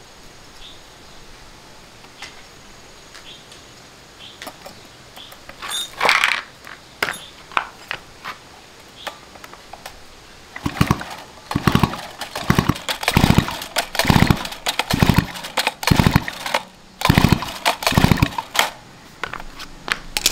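A two-stroke chainsaw's recoil starter pulled again and again, about one pull a second, the engine cranking on each pull but not catching. Light clicks and knocks come before the pulls.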